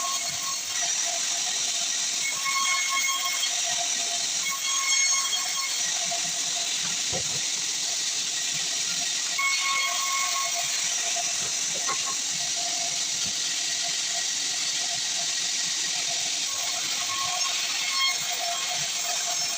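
Sawmill saw running through acacia wood: a steady hiss, with a faint whine that comes and goes every few seconds.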